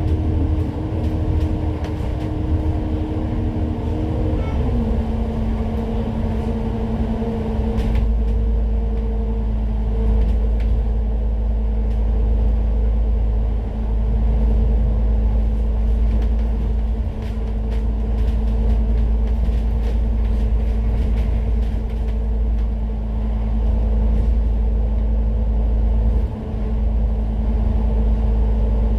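Citybus bus running on the road, its engine and drivetrain droning steadily. The engine note drops about five seconds in, and a heavy low rumble comes in from about eight seconds.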